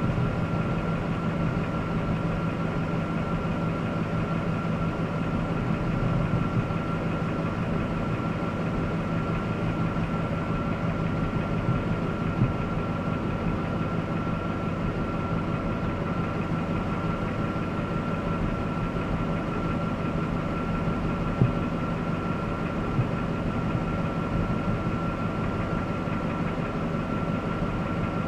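Jasper remanufactured 5.3-litre V8 running steadily, with a constant high whine over the engine sound and two sharp ticks, one about halfway and one later on. It is the unidentified noise the owner is trying to trace.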